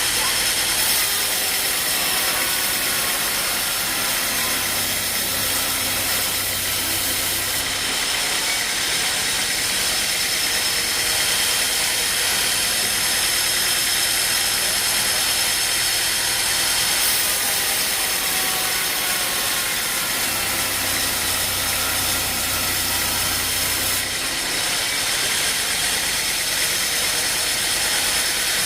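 An engine-driven wood-cutting machine running steadily, with a continuous high hiss and a few steady high tones.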